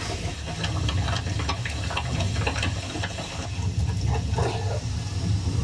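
Coconut chutney being ground by hand in a traditional stone grinder: a steady low rumble of the stone pestle turning in the stone basin, with scattered wet scrapes and small knocks of stone on stone.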